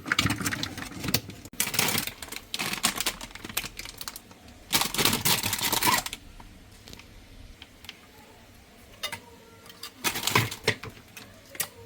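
Rapid clicking and clattering in several bursts of a second or so, with scattered single clicks between: tools and plastic parts being handled while a refrigerator's faulty chiller fan motor is taken out and replaced.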